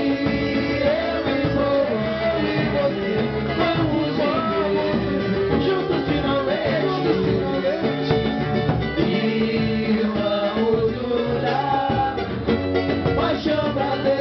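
Live samba-pagode group playing: percussion keeps a steady beat while plucked strings carry the melody, with no words sung.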